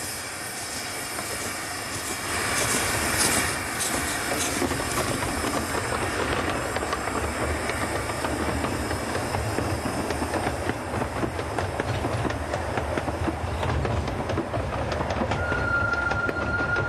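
Narrow-gauge steam train running along the line: a steady rumble and hiss with the wheels clicking over the rail joints, louder from about two seconds in. A steady high tone sounds near the end.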